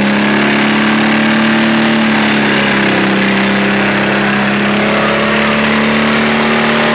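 Riding lawn mower engines running steadily under load, the two tractors straining against each other through a tow chain; a loud, even engine drone whose pitch wavers slightly.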